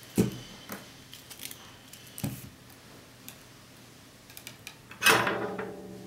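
Tools and a metal reel of solder being handled and set down on a work table: a few sharp knocks and clicks, the loudest about five seconds in, with a short ringing after it.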